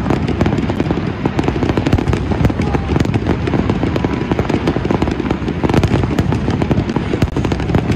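Aerial fireworks in a dense barrage, many shells bursting in quick succession as an unbroken string of bangs with no pause.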